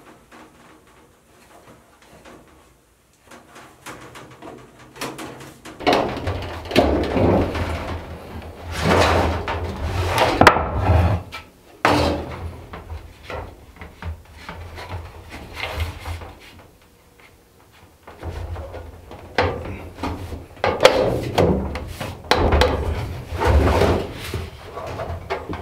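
A thin sheet of copper being bent and handled over a wooden block on a plank floor: the sheet flexes and rattles, with knocks against the wood. The handling begins several seconds in, pauses midway and starts again.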